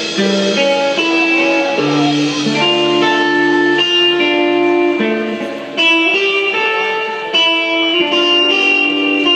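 Live band music with electric guitar to the fore, playing a run of held notes and chords.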